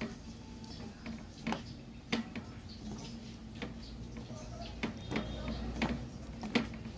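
Metal tongs clicking and scraping against a metal mixing bowl while tossing chicken proventriculus (proben) in flour, with irregular clicks about once or twice a second over a steady low hum.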